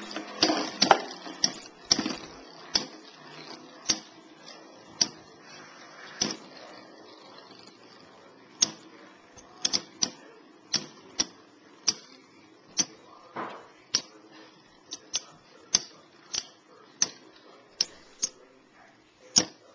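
Two Metal Fusion Beyblade tops, Lightning L-Drago 100HF and Rock Aries ED145B, clacking against each other as they spin in a plastic stadium: sharp metal hits roughly once a second, sometimes two close together. Under the hits a whirring scrape of the spinning tops fades away over the first several seconds.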